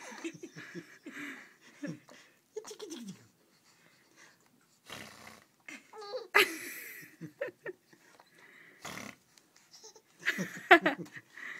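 Young baby laughing in short, breathy bursts with gaps between them, loudest near the end.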